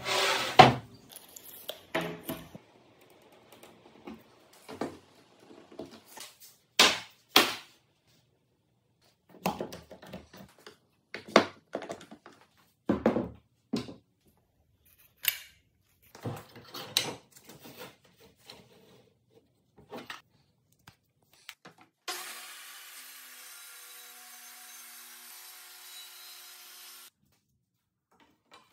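Scattered clacks and knocks as an aluminium straightedge rail is handled on a plywood sheet and one-handed bar clamps are squeezed onto it. A few seconds of steady hiss come in about three quarters of the way through and stop.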